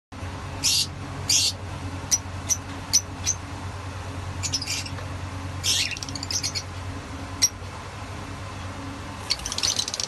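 Fischer's lovebirds giving short, sharp, shrill chirps at irregular intervals, with a quick run of chirps starting near the end. A steady low hum runs underneath.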